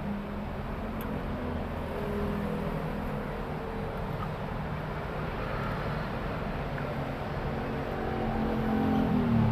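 A motor vehicle engine running steadily, getting louder near the end.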